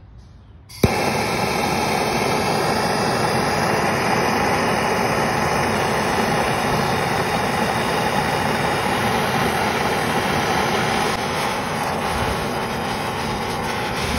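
Gas blowtorch lit with a sudden pop about a second in, then its flame jet runs as a loud, steady rush against a burning urethane skateboard wheel.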